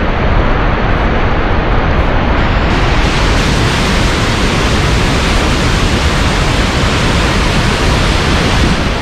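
Upper Yosemite Falls pouring over its granite brink: a loud, steady rush of falling water.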